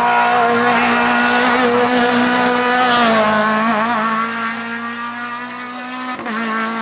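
Racing car engine held at high revs as the car passes at speed, loudest about halfway through, with a brief break near the end, typical of a gear change, before the revs pick up again.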